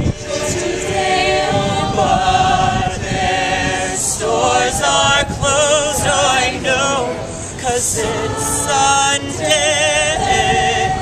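A cappella vocal group of men and women singing in harmony without instruments, the held notes carrying a clear vibrato.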